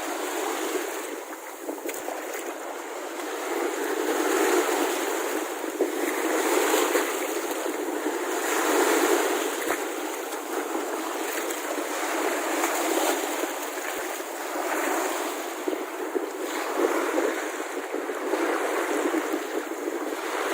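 Sea waves washing onto the beach: a steady rushing that swells and ebbs every few seconds.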